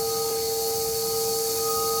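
EGO HPW3200 cordless pressure washer running on its low setting with the 15-degree nozzle: a steady whine from the brushless motor and pump over a hiss of water spray, with no change in pitch or level.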